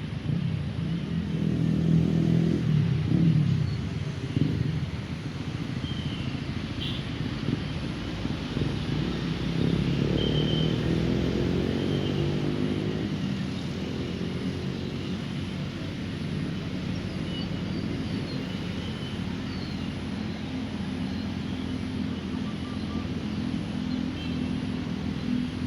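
Road traffic: motor vehicles passing close by with engine drone, one loud pass about two seconds in and another about ten seconds in, then a steadier engine hum. A few faint bird chirps sound in the background.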